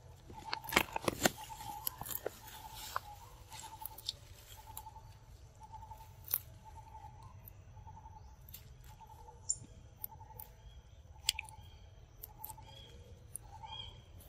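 Macaques pulling at and feeding on leafy vines: sharp snaps and crackles of stems and leaves, thickest in the first few seconds. Behind them an animal repeats a short low call about once a second, with a few higher chirps near the end.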